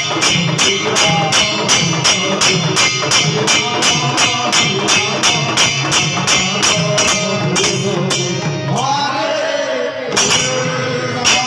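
Several khol (mridanga) barrel drums being played in a fast devotional rhythm, with hand cymbals clashing about four times a second. The cymbals drop out for about two seconds near the end, then come back.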